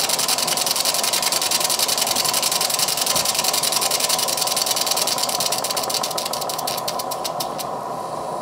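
Single-cylinder Stuart Progress model steam engine running fast on live steam, still warming up from cold: a quick, even patter of exhaust beats over the steady hiss of the gas burner and boiler. Near the end the beats slow and stop, and the hiss carries on.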